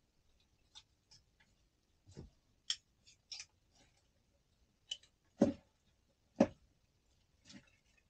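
Scattered small clicks and light knocks of things handled on a table, with two louder knocks about five and a half and six and a half seconds in.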